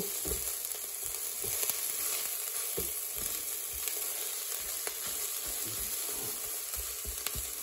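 Onion, garlic and scrambled egg sizzling in the hot inner pot of an electric pressure cooker, stirred with a spatula, with small scrapes and knocks of the spatula against the pot over a steady hiss.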